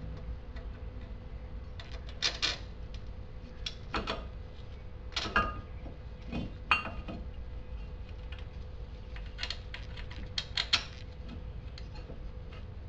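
Small metal brake parts being handled and fitted by hand at a car's front brake caliper bracket: scattered light metallic clicks and clinks, with a quick run of sharper ones near the end, over a steady low hum.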